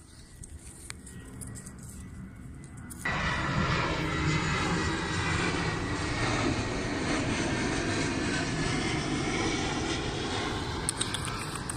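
A steady mechanical roar with faint steady tones in it, starting abruptly about three seconds in after a quiet opening.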